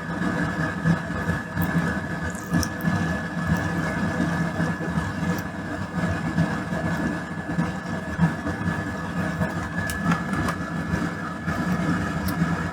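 Benchtop fume extractor fan running steadily, a drone with a constant high whine above it, with a few faint clicks and taps of work over it.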